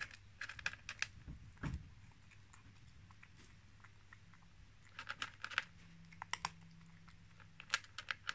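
Cat eating dry kibble: crisp crunches in several short bursts with pauses between.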